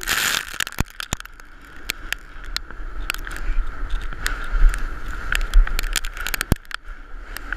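Wooden volcano board sliding fast down loose volcanic gravel, a steady scraping hiss with scattered sharp clicks of stones and grit striking the board. Wind buffeting the camera's microphone adds a low rumble.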